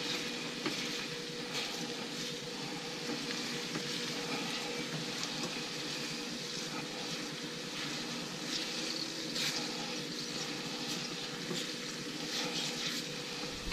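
Corn kernels simmering in a stainless skillet of dashi and miso butter: a steady sizzling, bubbling hiss as the liquid cooks down, with occasional light scrapes of the spatula and a faint steady hum underneath.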